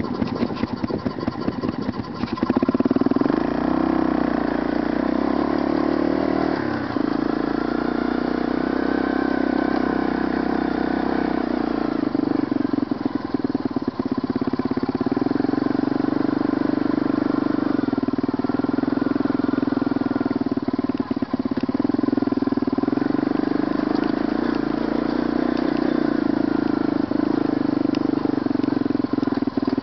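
ATV engine running under way, revving up a couple of seconds in and then holding a steady pitch as the quad rolls along.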